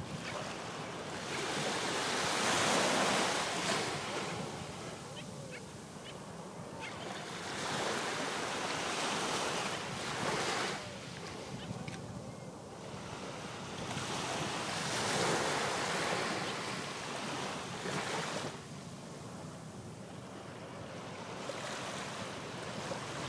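Small waves breaking and washing up the beach from the Gulf of Mexico, the surf swelling into a louder rush every few seconds and falling back between.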